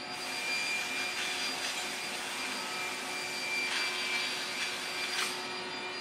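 CNC cutting machine with a round saw blade running: a steady motor whine and rushing noise, with a few brief swells.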